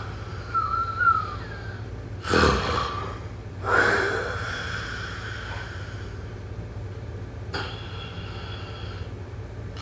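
A person snoring and breathing heavily in sleep: a short whistle about a second in, a loud noisy breath a little over two seconds in, then a longer breath that trails off with a faint whistle, and a brief burst near the end. A steady low hum runs underneath.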